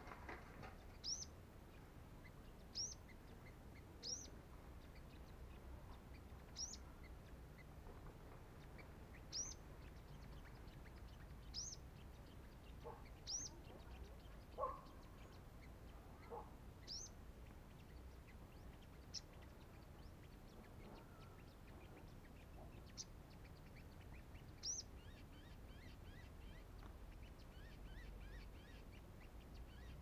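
A sunbird, the decoy in a trap cage, gives eleven short, sharp high call notes, one every two or three seconds, which stop about five seconds before the end. A few fainter, lower chirps come in the middle.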